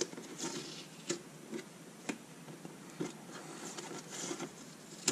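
Blue painter's tape being peeled off a cardboard and acrylic box panel: short tearing rasps, with a handful of light clicks and taps about once a second.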